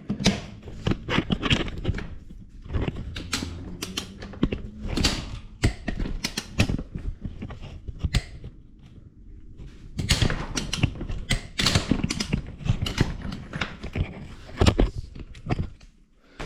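Hand tools working on a motorcycle's triple tree (steering yoke) to remove it: irregular metallic clicks, clinks and knocks, with a quieter pause a little past the middle.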